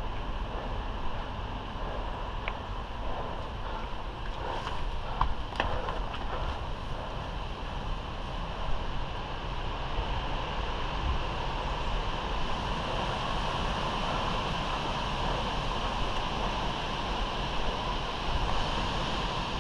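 Steady rushing wind noise on the microphone, with a few faint clicks about two and a half and five and a half seconds in.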